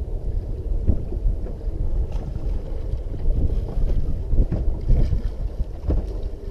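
Wind buffeting the microphone aboard a small fishing boat on a choppy sea: a heavy, uneven rumble with irregular thuds.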